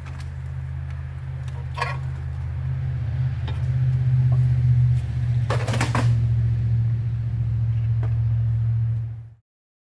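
A steady low machine hum that grows louder over the first few seconds, with a few clicks and knocks over it, a cluster of them about halfway through. It cuts off abruptly near the end.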